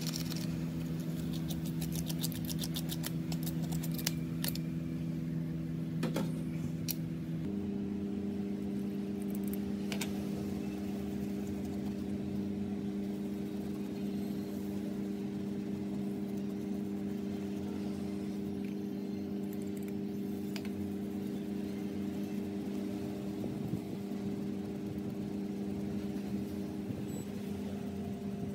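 A steady electric motor hum from a workshop machine; its pitch steps up once, about seven seconds in, and then holds. Light clicks and ticks of tools on the phone come in the first few seconds.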